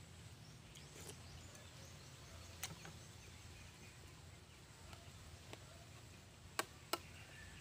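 A metal spoon clicking against a plate and bowl while eating: one click a little over two seconds in and two sharp clicks close together near the end, over a quiet low background hum.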